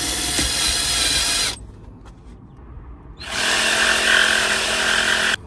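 Power drill driving screws to fasten a shelf's legs: two runs of the motor, the first ending about a second and a half in, the second starting about three seconds in and cutting off suddenly near the end.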